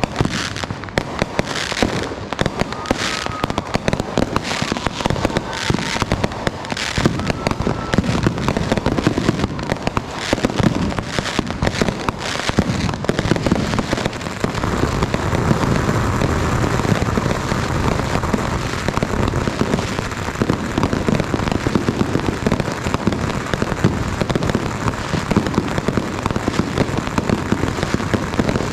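Fireworks and firecrackers going off nonstop. Many sharp bangs and pops in the first half, with a few brief whistles, give way about halfway to a dense, continuous crackle like long strings of firecrackers.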